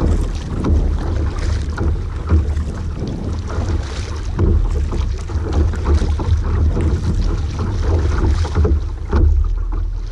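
Double-bladed kayak paddle dipping and splashing in lake water stroke after stroke, under a heavy rumble of wind on the microphone.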